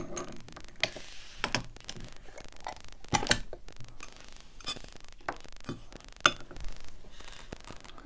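A brass mortise lock cylinder being handled, taken out of a bench vise and set on a steel tray: scattered small metallic clicks and knocks, the loudest about three and six seconds in.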